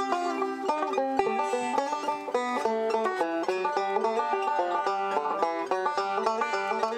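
Banjo picked at a fast pace, a steady stream of bright plucked notes.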